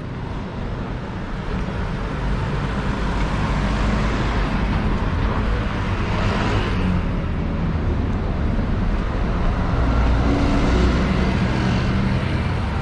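Road traffic on a busy town high street: cars and a motor scooter going past in a steady rumble that grows louder after the first few seconds.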